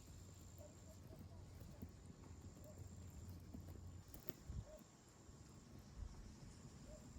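Near silence: faint outdoor quiet with a low wind rumble, a thin steady high whine and a few faint short chirps spread through it.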